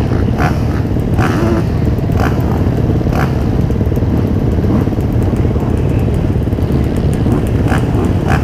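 MX2 motocross bikes racing, their engines running loud and steady.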